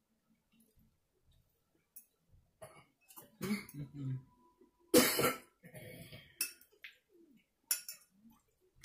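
A person coughing a few times, the loudest cough about five seconds in, with quieter throaty sounds before and after it.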